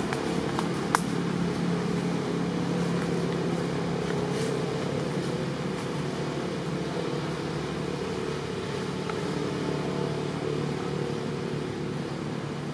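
A steady low mechanical drone, like a motor running, with one sharp click about a second in.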